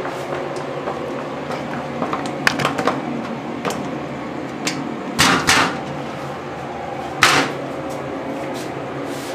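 Scattered clicks and clunks of work on a kitchen counter and its cabinet, the two loudest knocks about five and seven seconds in, over a steady hum.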